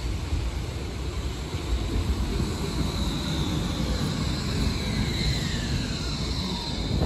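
Končar TMK 2300LT low-floor tram passing close by: a steady rumble with a high electric whine, and a second whine that falls in pitch over the last few seconds.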